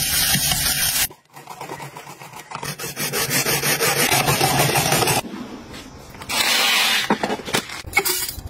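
A rotary drum vegetable grater shredding vegetables: rhythmic rasping strokes for about four seconds. Before it comes about a second of hiss, likely food sizzling in a frying pan, and after it come a few clicks and knocks near the end.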